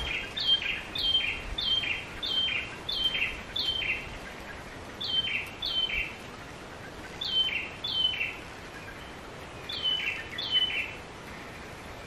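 Yellow-vented bulbul (trucukan) calling in bursts of two to six short, sharp notes, each a quick downward note followed by a lower one. These are its agitated, aggressive calls, which usually mean it is close to its nest.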